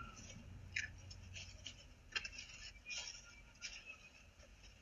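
Faint scattered clicks and rustles over a low steady hum.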